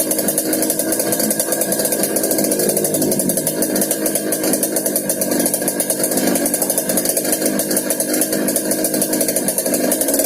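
Yamaha RX-King's single-cylinder two-stroke engine running steadily through a 'ngorok' (growling) exhaust, with a fast, even beat of firing pulses.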